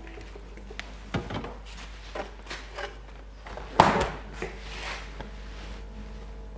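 A scatter of short knocks and taps, the loudest about four seconds in, over a steady low hum.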